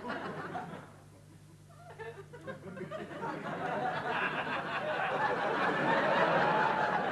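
Studio audience laughing: a short burst at first, then laughter that builds from about two seconds in and swells loudest near the end.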